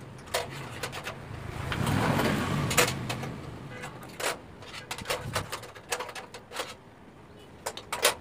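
Scattered clicks and taps of plastic on metal as LED backlight strips are handled and pressed into place in an LED TV's sheet-metal backlight tray. The noise swells about two seconds in, as of a vehicle passing.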